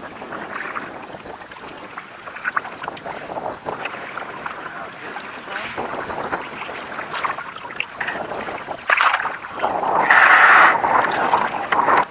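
A kayak moving toward shore with water splashing and lapping against the hull and small knocks. About nine seconds in comes the loudest part: the hull scraping and grinding up onto the sandy bank as it runs aground.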